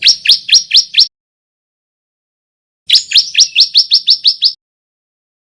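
Male bar-winged prinia (ciblek) song: two bursts of short, sharp, upward-sweeping chip notes, about five a second. The first burst has about five notes at the start; the second, longer one has about nine and comes about three seconds in.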